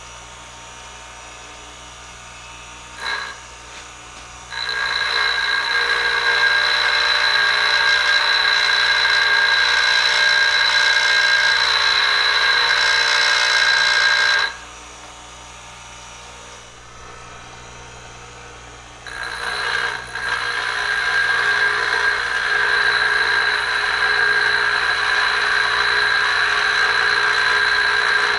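Baldor carbide grinder running with a steady hum while a carbide Top Notch insert is ground against its wheel twice. Each grind is a steady, loud grinding with a high ring, the first about ten seconds long. A short click comes just before the first grind.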